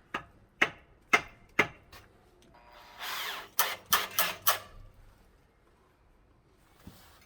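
Four sharp metal taps about half a second apart, then a brief whirr of a cordless drill or driver, then another quick run of taps.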